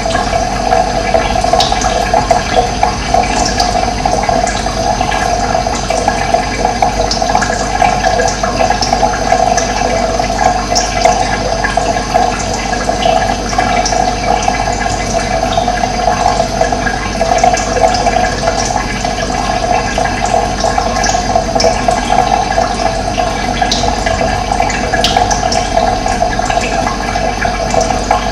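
Steady rush of running water, with brief high bird chirps scattered throughout.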